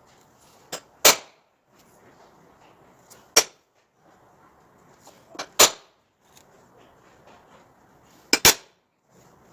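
A series of sharp, hard knocks: a loud one about a second in, another a little before halfway, a close pair past the middle and another close pair near the end. A faint hiss between them starts and stops abruptly.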